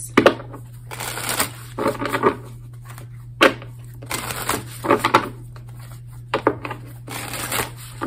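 A deck of tarot cards being shuffled by hand: short bursts of riffling and sliding cards, about eight times over, above a steady low electrical hum.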